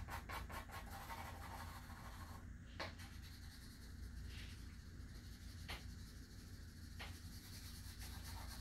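Faint scratching of a graphite pencil stroking across paper as fur is shaded in, with three light ticks.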